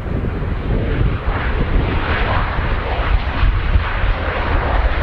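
Jet engine noise of an Airbus A320 landing, growing louder from about a second and a half in. Heavy wind buffets the microphone with a steady low rumble throughout.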